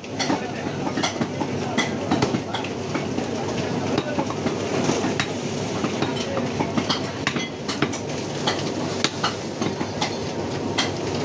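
Butcher's cleaver chopping beef on a wooden log chopping block: sharp, irregular chops, about two a second, over steady background noise.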